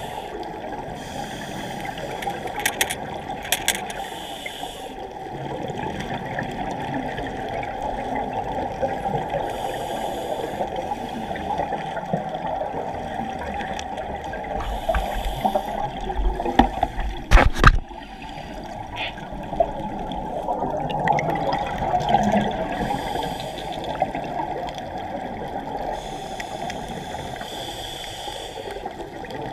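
Muffled underwater sound picked up by a GoPro in its waterproof housing, with a scuba regulator's exhaled bubbles hissing every few seconds. A few sharp knocks come a little past the middle.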